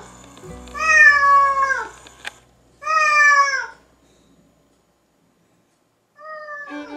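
Domestic cat meowing at a locked glass door to be let out: two loud meows about a second apart, each falling in pitch, and a fainter third meow near the end.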